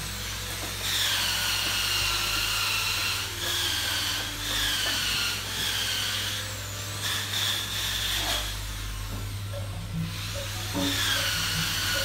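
A small high-speed power tool whining in about six bursts, its pitch sagging and recovering within each burst, over a steady low hum.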